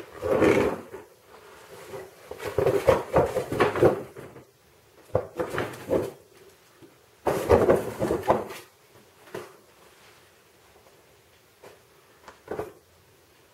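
A cardboard box being shoved, bumped and scraped across a tiled floor by a playing cat: several bursts of scraping and knocking a second or two apart, then a few light taps near the end.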